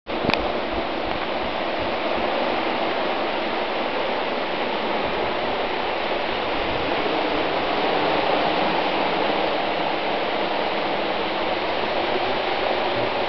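Hailstorm: hail falling hard, a steady, dense rush of hailstones striking the ground. There is a single sharp click just after the start.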